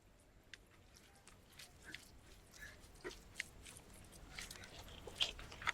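Close-miked eating: faint lip smacks, chewing and small clicks, sparse at first and coming more often and louder in the second half.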